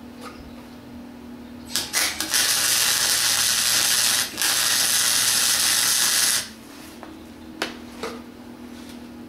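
Campbell Hausfeld 105 MIG welder striking an arc with a few sputtering pops, then a steady crackling sizzle for about four seconds, broken briefly midway, as a tack weld is laid on scrap metal. The welder's low hum runs underneath throughout.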